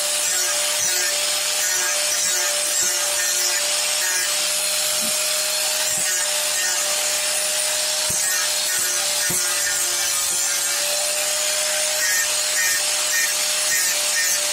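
Electric angle grinder running steadily with an abrasive disc against wood: a constant motor whine under a continuous hiss of grinding. A few light knocks fall in it.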